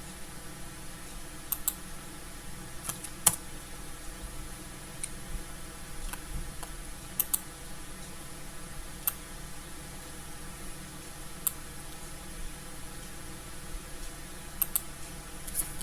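Sparse clicks from working at a computer, mouse and keys, some coming in quick pairs, over a steady room hiss.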